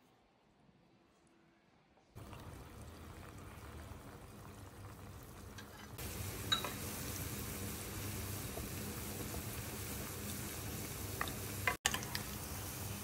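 Potato tuna balls deep-frying in hot oil: a steady sizzling and bubbling that starts about two seconds in and grows louder about six seconds in, with a few small pops.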